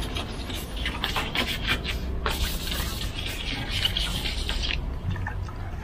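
Headlight lens being wet-sanded by hand with water-soaked 1500-grit wet-or-dry sandpaper: quick, irregular scrubbing strokes.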